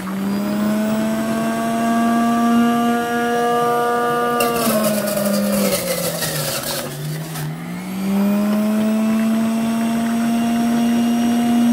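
Electric centrifugal juicer's motor running with a steady hum. About four seconds in it bogs down with a rough grinding noise as honeydew melon is pushed through the feed chute, then spins back up to speed.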